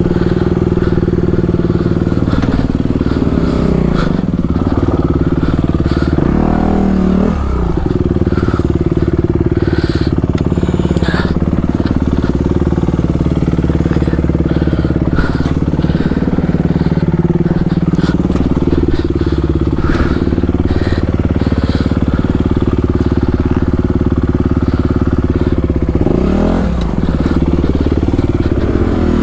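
Dirt bike engine running at low revs as the bike is picked slowly over boulders. The revs rise and fall briefly a few times, near the start, about seven seconds in and near the end, with occasional short knocks between.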